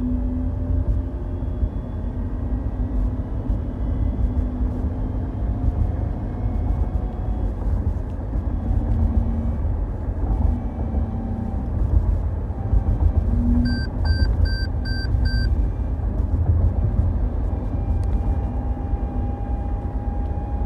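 2017 Toyota Highlander XLE accelerating: a steady low road and engine rumble with a thin high-pitched whine that slowly rises in pitch. The owner takes the whine for a sign of transmission failure. About two-thirds of the way through, five quick beeps sound in a row.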